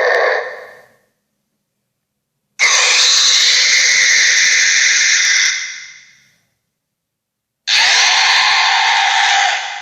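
Monster creature sound effects: loud, harsh screeching shrieks. The tail of one fades out in the first second, then two more follow, each about three seconds long, starting abruptly and fading away, with dead silence between them.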